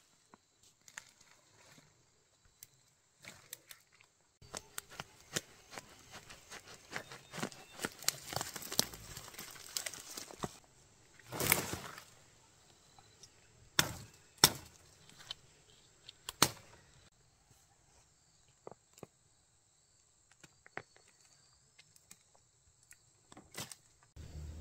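Rustling and scattered clicks, then a few sharp knocks, the loudest about halfway through, over a faint steady high hiss.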